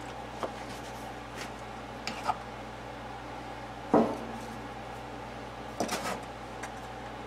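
Metal tools and a small box set down on a paper-towel-covered tray: a few short knocks, the loudest about four seconds in, over a steady hum.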